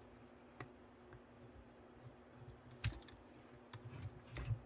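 Scattered small clicks and taps of an HO-scale model locomotive's parts being handled as its front truck is taken off, the sharpest a little before 3 seconds in and near the end.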